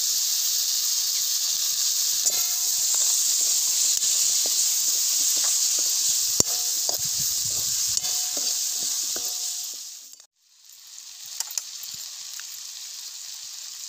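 Freshly added eggplant pieces frying in hot spiced oil in a wide metal kadhai, sizzling steadily, while a steel spatula scrapes and clinks against the pan as they are stirred. About ten seconds in the sound cuts out for a moment and comes back as a quieter sizzle.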